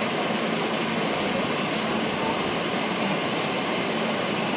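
Steady murmur of a large outdoor crowd of spectators, with no distinct event standing out.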